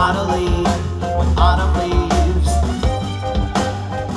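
A live indie pop band playing with drums, bass and keyboards under a steady beat. A male voice sings short phrases at the start and again about a second and a half in.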